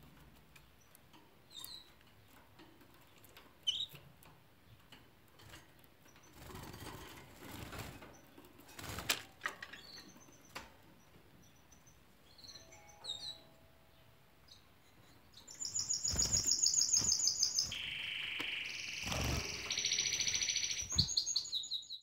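Canaries chirping: a few short, sparse calls and soft knocks at first, then, about two-thirds of the way through, a canary breaking into loud song of rapid repeated trills that jump between higher and lower pitches, cut off abruptly at the end.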